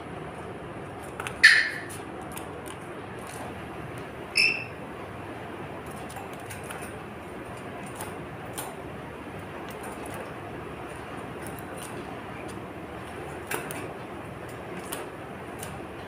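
Pet lorikeet giving two short, sharp screeches, about a second and a half in and again about three seconds later, the first the louder, followed by scattered light clicks and taps as the bird moves about its wire cage.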